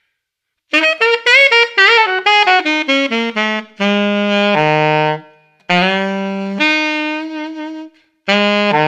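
Alto saxophone playing a blues lick. A quick run descends the minor blues scale and lands on two held low notes, the fourth and then the root. After a brief break it scoops up into the major third and settles on a long, high root with vibrato, and a new phrase starts near the end.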